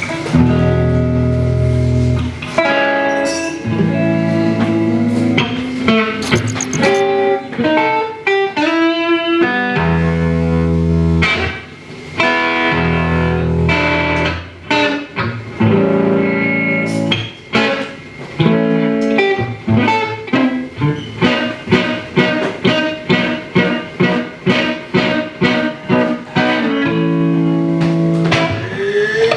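Reggae band playing an instrumental passage: bass and electric guitar, with short choppy guitar chords about twice a second in the second half.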